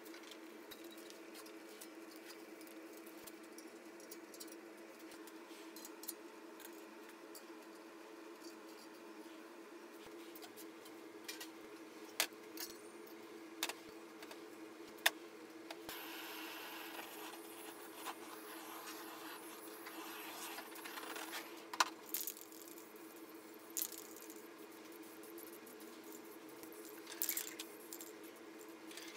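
Aerosol spray paint can hissing, in a long burst past the middle and a short one near the end, with scattered sharp metal clinks and knocks from steel plates being handled, over a steady low hum.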